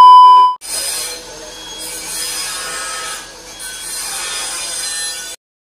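A loud steady TV test-card tone, the beep that goes with colour bars, lasting about half a second. It is followed by hissy, scraping noise in three long stretches that cuts off abruptly near the end.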